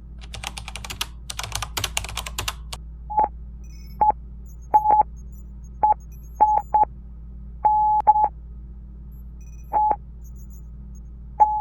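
A quick run of computer-keyboard typing, then a sequence of electronic beeps at one steady pitch, some short and some long, in an uneven rhythm that sounds like Morse code. The sequence ends on a long held beep.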